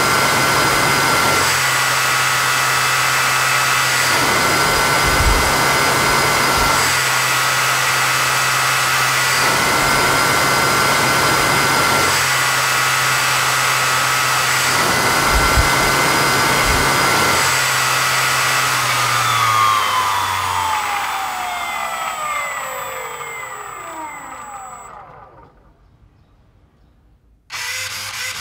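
Electric ducted fan of a 3D-printed GEnx-1B jet engine model, spun by a brushless electric motor, running at steady high speed with a whine of several tones over a rushing of air. About 19 seconds in it spools down, the whine falling in pitch and fading almost to silence; near the end a different mechanical sound starts suddenly.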